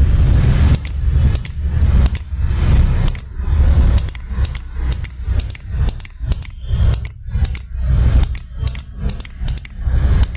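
Computer mouse clicking repeatedly, about two clicks a second, as slab areas are picked one by one, over a low pulsing rumble.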